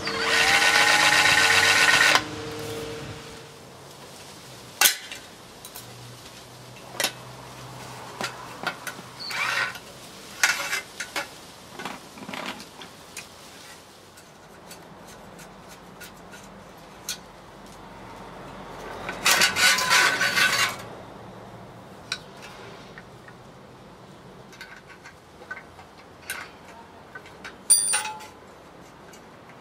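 A cordless drill runs briefly near the start, its pitch rising as it spins up. After that come scattered clicks, knocks and scraping of metal parts and hand tools as the drill-driven outboard attachment is taken apart, with a louder two-second stretch of noise about two-thirds of the way through.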